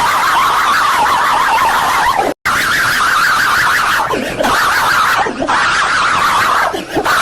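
Very loud, harsh, distorted blaring noise, siren-like, broken by a brief dropout about two and a half seconds in and a few short dips later.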